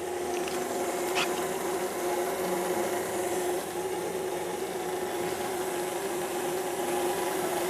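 Steady mechanical hum with a hiss, unchanging throughout, and a single light clink about a second in.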